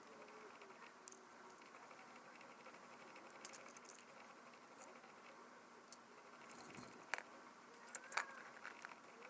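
Faint, scattered small clicks and ticks of tiny camera parts and tools being handled while a Canon PowerShot S110 compact camera is taken apart, with a sharper click about seven seconds in and again about a second later.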